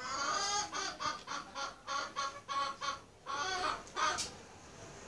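A hen cackling: a quick run of short clucks, about three a second, then a longer drawn-out call and a brief one near the end.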